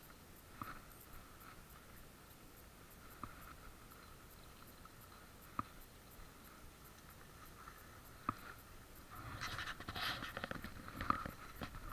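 Muffled ride noise picked up by a chest-mounted action camera on an electric scooter: a faint steady whine with a few isolated sharp clicks. From about nine seconds in comes a run of scratching and rustling.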